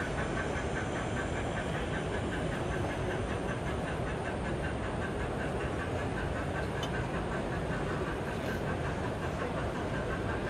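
Sound-fitted OO-gauge steam locomotive chuffing in a quick, even rhythm from its onboard speaker, over a steady wash of exhibition-hall background noise.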